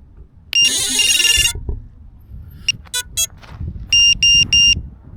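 Piezo lost-model buzzer on a 5-inch FPV quadcopter beeping at one high pitch. There is a longer, rasping beep about half a second in, a few short chirps around three seconds, then three quick beeps near the end.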